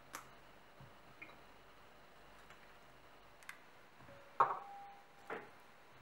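Sparse light clicks and taps of fresh strawberries being hulled by hand and dropped into a ceramic bowl. The loudest is a knock about four and a half seconds in, followed by a brief ring from the bowl, with a softer knock a second later.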